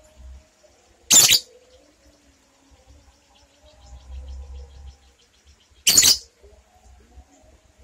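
A caged lovebird giving two short, harsh screeching calls, about five seconds apart.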